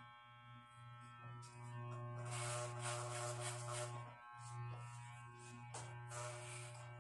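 Electric hair clippers running with a steady hum, briefly dipping about four seconds in, with louder noisy stretches about two seconds in and near the end.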